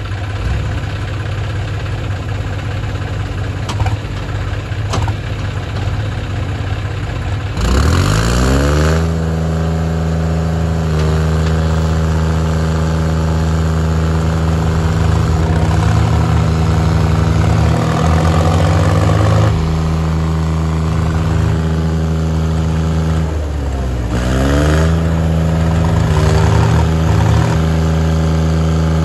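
Diesel engines of a John Deere 5050 D and a New Holland 3630 tractor hitched together for a tug-of-war pull. They idle for about seven seconds, then rev up sharply and hold at high speed under load, dipping briefly and picking up again about two thirds of the way through.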